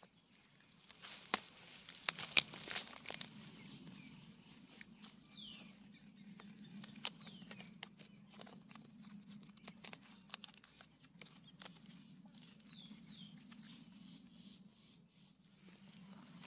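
Faint outdoor evening ambience: a high, even trill that stops and starts, under a low steady hum. Scattered sharp clicks and rustles, loudest a second or two in, and a few short chirps.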